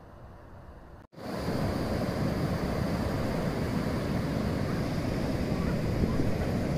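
A quiet low hum stops abruptly about a second in. Steady ocean surf follows, with wind rumbling on the microphone, much louder than the hum.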